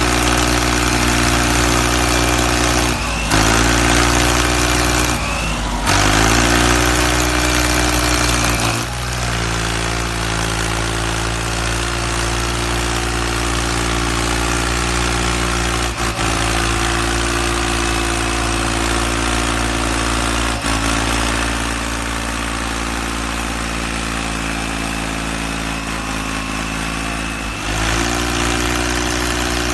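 Engine idling steadily with a low, even note, its pitch jumping and settling again at abrupt changes about 3, 6, 9 and 28 seconds in.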